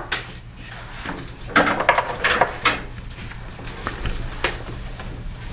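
Hand tools being handled: a cluster of short metallic clinks and knocks about one and a half to two and a half seconds in, then a few lighter clicks, as a socket and adapter are swapped.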